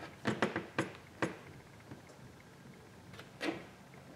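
Handling knocks as a smartphone is turned over and picked up on a work mat: a quick run of about five light taps and clacks in the first second or so, then one more about three and a half seconds in.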